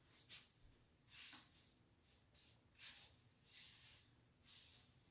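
Faint soft swishes of a comb and hands stroking through slicked hair, several short strokes about a second apart.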